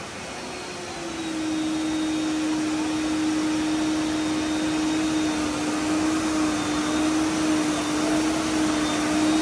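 Hydraulic pump running with a steady whine over a hiss, powering a Boeing 767's landing gear for a retraction and extension test. About a second in, the whine settles to a lower pitch and gets louder, then holds.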